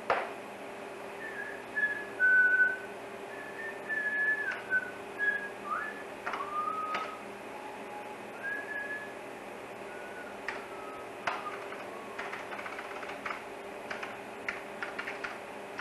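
A person whistling a string of short notes of a tune. After the whistling, scattered keyboard-like clicks come in over a steady machinery hum.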